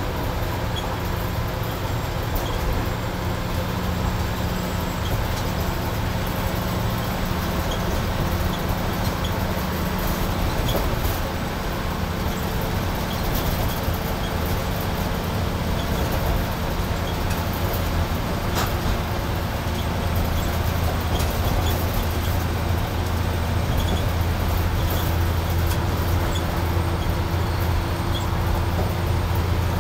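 Bus in motion heard from inside the passenger cabin: steady engine drone and tyre and road noise at highway speed. The low drone grows a little louder about two-thirds of the way through.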